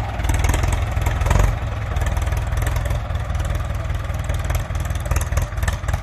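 Ford 6640 tractor's diesel engine running, with a brief louder swell about one and a half seconds in before it settles back to a steady run.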